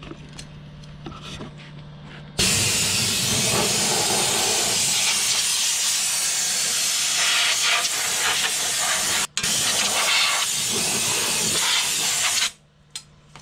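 Compressed air hissing from a long-nozzle air blow gun, blowing dust and debris out of a generator enclosure and its vents. The hiss starts about two seconds in, breaks for an instant a little past halfway, and cuts off shortly before the end.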